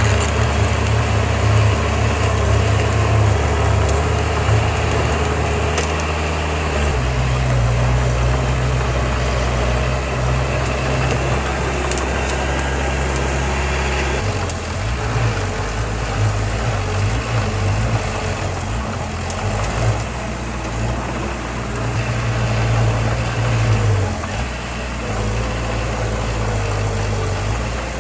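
Heavy diesel engine of earthmoving machinery running, with its low engine note changing pitch about 7 and 14 seconds in as the load shifts.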